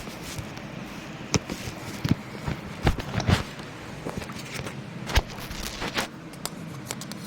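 Irregular light taps and clicks, about a dozen over several seconds, from fingers tapping and handling a touchscreen device, over a low steady hum.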